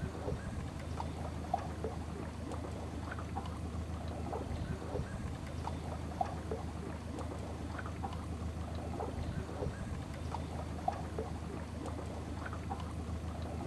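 Small boat moving slowly over calm river water: water lapping and gurgling against the hull in many short irregular splashes, over a steady low hum.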